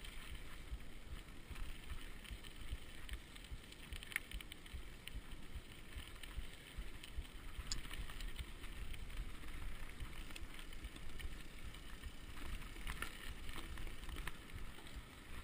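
Mountain bike riding fast downhill on a dirt and gravel track: wind buffeting the microphone over the tyre noise, with scattered sharp clicks and rattles from the bike.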